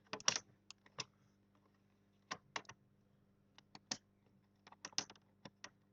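Plastic clicks of a laptop's screen bezel being pressed and snapped into place: light, irregular clicks in small clusters, with a faint steady hum underneath.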